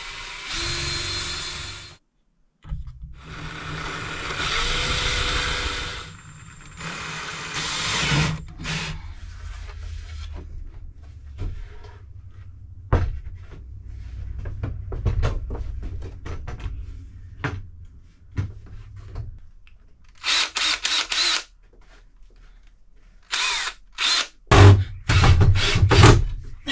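Cordless drill/driver running in several bursts, driving screws into wooden cabinetry, with knocks and clatter of wood and tools in the pauses between bursts.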